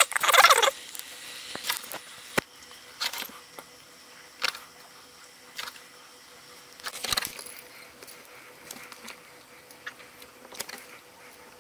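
Craft knife blade scraping through leather in short strokes as a spiral lace is cut from a leather circle. A dense run of scratching at the very start, then scattered single scrapes, one sharp tick about two seconds in and a louder scrape around seven seconds, over a faint steady hum.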